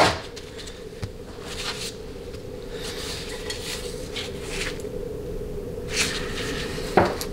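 Light metallic clicks and scrapes of small steel parts as the MTV upshift valve's retaining pin and plug are worked out of a 700R4 automatic transmission valve body, the valve held under spring tension. There are a few separate clicks, the sharpest near the end, over a steady low hum.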